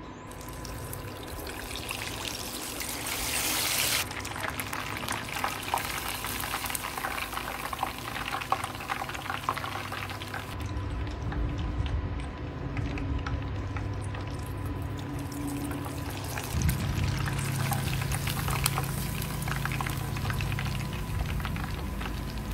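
Breaded chicken lollipop deep-frying in hot oil in a stainless steel pot: a steady sizzle with dense crackling that picks up about four seconds in.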